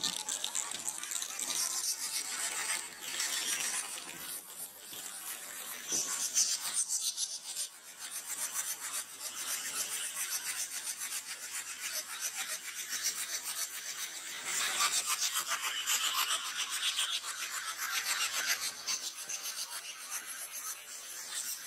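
Skis scraping and hissing over packed snow, a rasping scrape that swells and fades several times.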